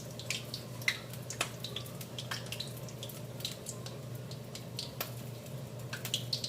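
Steak-and-cheese burrito frying in hot oil, with irregular crackling and popping over a steady low hum.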